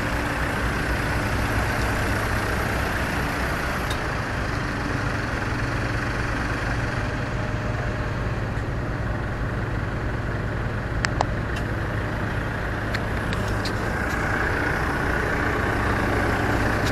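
Engine running steadily: an even low drone with a noisy wash over it, unchanged throughout. A few sharp clicks come in the second half.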